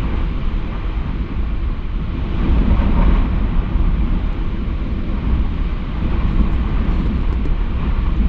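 Very strong, gusty wind buffeting the microphone: a heavy low rumble under a rushing hiss, with a stronger gust about three seconds in.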